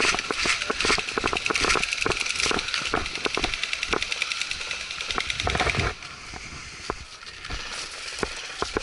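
Electric airsoft rifles firing full-auto bursts, a rapid mechanical rattle, over rustling and footsteps through dry leaves and undergrowth. It turns quieter about six seconds in.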